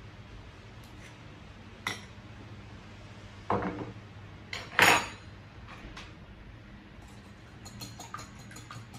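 Kitchen utensils knocking against glass bowls: a few sharp knocks, the loudest about five seconds in. Near the end, the quick light clicking of a wire whisk beating eggs in a glass bowl begins.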